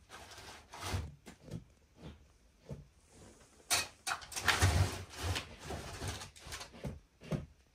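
Scattered wooden knocks, creaks and rustles in a small room, with a louder cluster of clattering about four to five seconds in.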